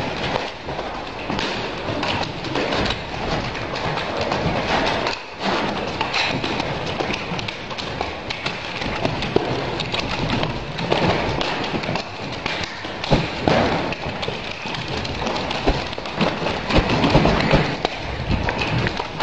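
A pair of nunchaku swung and spun without a break: a continuous rush of swishing, with many sharp clacks and thuds as the sticks strike and are caught.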